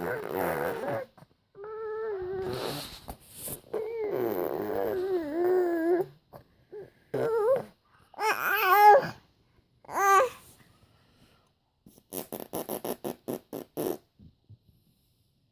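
A string of wavering, sliding vocal noises, each a second or two long, rising and falling in pitch, the loudest about eight seconds in. Near the end comes a quick run of short repeated sounds, about eight a second.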